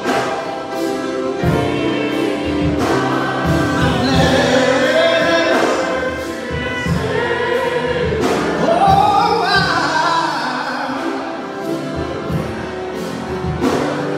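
Gospel song sung by several voices with instrumental accompaniment and a steady beat.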